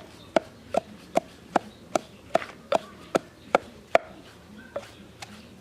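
Knife chopping on a cutting board in a steady rhythm of about two and a half strokes a second, about ten sharp strokes that stop about four seconds in.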